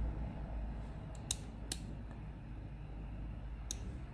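Small slide switches on an FPGA development board flipped by hand: sharp little clicks, two close together about a second and a half in and one near the end.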